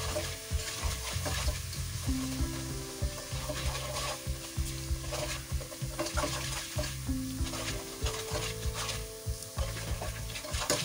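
Ground spices and ginger-garlic paste sizzling in oil in a pot over a low flame while a nylon slotted spoon stirs and scrapes through them in repeated strokes. This is the bhuna stage, with the masala being fried gently so it doesn't burn.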